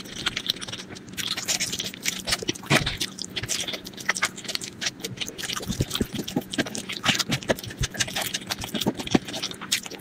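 Close-miked eating sounds: a constant run of short wet clicks and smacks from chewing and mouthing food.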